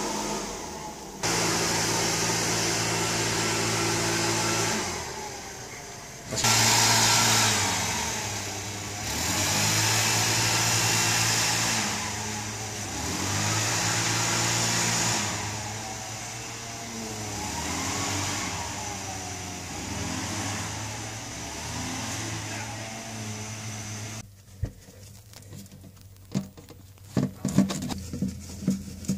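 Volvo Penta AQ211A inboard engine running, its revs rising and falling several times, then shut off abruptly about 24 seconds in, during winterization. A few scattered clicks and knocks follow near the end.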